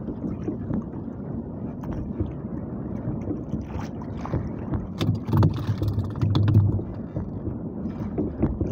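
Choppy sea water lapping against a small wooden outrigger boat, with wind on the microphone. It gets louder for over a second about five seconds in.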